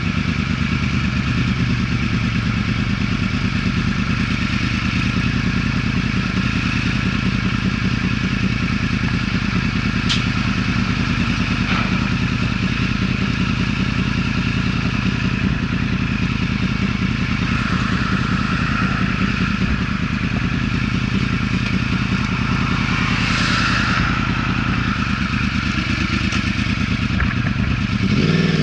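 Yamaha R1's inline-four engine running steadily with an even, low rumble, swelling briefly near the end.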